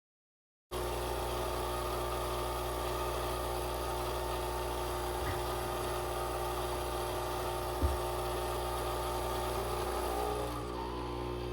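Nespresso coffee machine's pump running steadily in descaling mode, pushing the descaling solution through: a low, steady buzzing hum that starts abruptly about a second in, with a small knock about eight seconds in.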